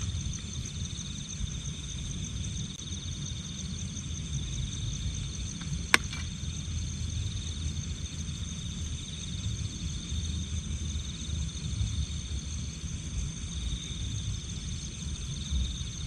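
Night insects, such as crickets, in a steady, pulsing high-pitched chorus, over a low rumble. A single sharp click about six seconds in.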